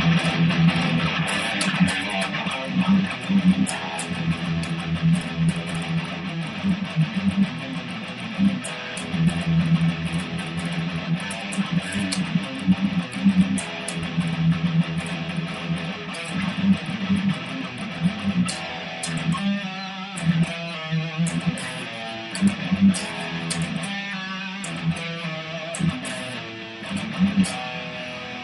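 Custom-built Ibanez Fireman electric guitar played through an amp on its bridge pickup, a DiMarzio Tone Zone humbucker, in a continuous passage of notes.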